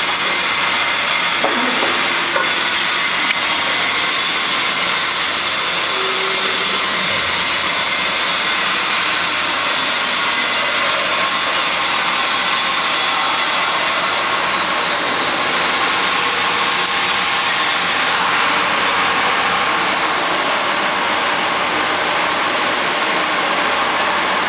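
Steady, loud hissing noise of running machinery, unchanging throughout, with a few light clicks in the first few seconds.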